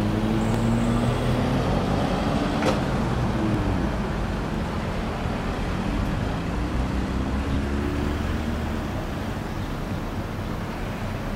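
Road traffic: a steady rumble of vehicles, with engines passing and shifting in pitch, and a single sharp click nearly three seconds in.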